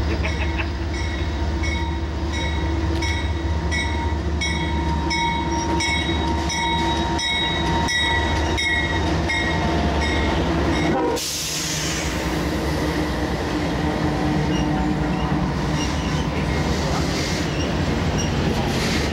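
Diesel freight train approaching and passing close by. A bell rings about twice a second as the train approaches and stops abruptly about eleven seconds in, when the lead locomotives go past. The locomotives' engines and the rolling freight cars follow, with some wheel squeal.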